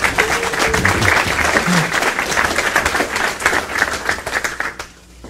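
Audience applauding in welcome, the clapping dying away near the end.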